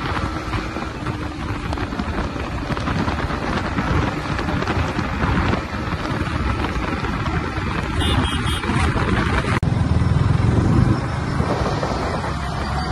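Wind rushing over the microphone of a Yamaha MT-15 motorcycle ridden at about 107 km/h, with the bike's 155cc four-stroke engine and road noise underneath. The sound changes abruptly about ten seconds in, and a deeper rumble follows.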